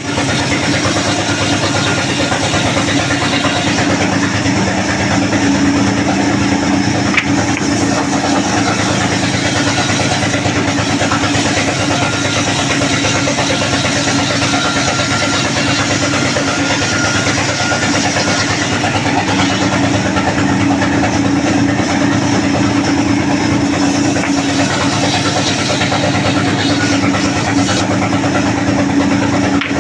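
Sawmill machinery running: a loud, steady mechanical drone with a constant hum.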